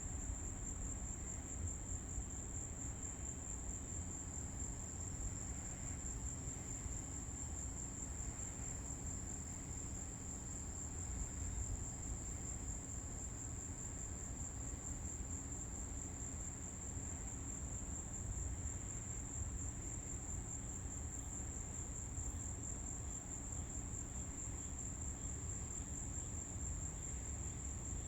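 Insects, likely crickets, trilling in a steady, unbroken high-pitched chorus over a low, steady rumble.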